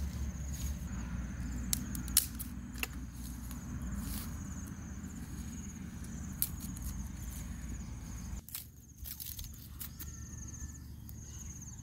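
Scattered knocks and clicks of stones and dry sticks being set down and handled on grass, over a steady low rumble that drops away about two-thirds of the way through. A high pulsing trill comes and goes throughout.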